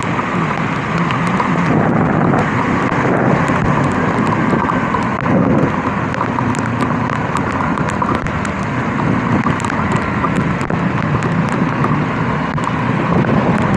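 Kawasaki KLE 250 motorcycle riding along in heavy rain: a steady engine hum under a constant rush of wind and rain noise, with scattered small ticks of raindrops.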